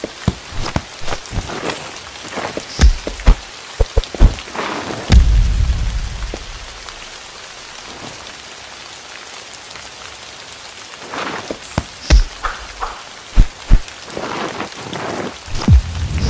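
Steady rain hiss broken by repeated sharp cracks and heavy low booms, in two clusters with a quieter stretch of rain between them.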